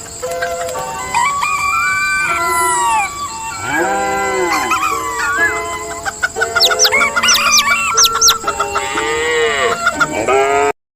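A rooster crowing and chickens clucking over steady background music, announcing morning. A long arching crow comes about four seconds in, followed by a rapid run of short clucks.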